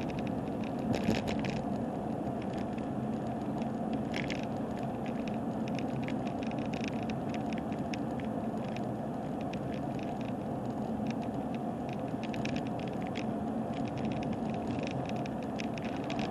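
Steady road and engine noise heard from inside a moving car, with frequent light rattling clicks from the camera as the car runs over a rough road.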